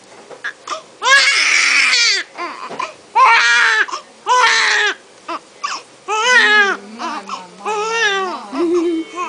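Newborn baby crying hard: about five loud wails of roughly a second each, beginning about a second in, with shorter, quieter cries between them.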